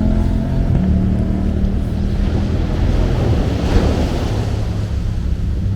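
Ocean surf washing in, with wind buffeting the microphone and a surge of wave noise a little before four seconds in. Low sustained tones sit underneath.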